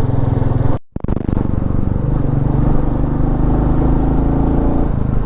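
Royal Enfield Meteor 350's single-cylinder engine running steadily under way. The sound cuts out briefly about a second in, then picks up again.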